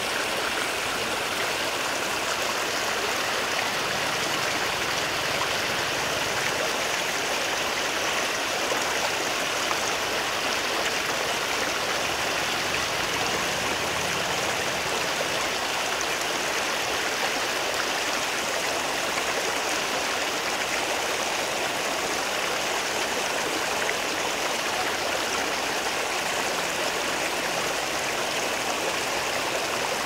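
Water flowing in a stream, a steady, even rush that holds the same level throughout.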